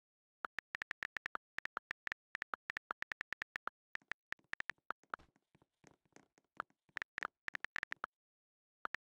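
Rapid, irregular series of short sharp clicks with a slight ringing tone, dead silence between them, and a pause near the end.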